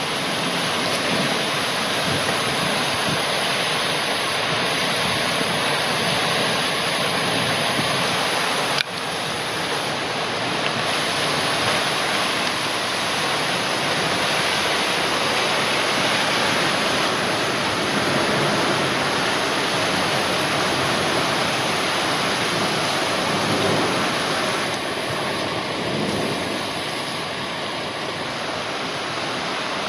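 Heavy rain pouring steadily in a thunderstorm, a dense even rush of water, with a single sharp click about nine seconds in.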